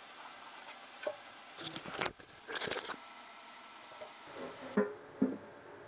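Sheet-metal fuel tank being handled and turned over on a workbench: two short bursts of metallic knocking and rattling about two seconds in, a few lighter knocks near the end, over quiet background music.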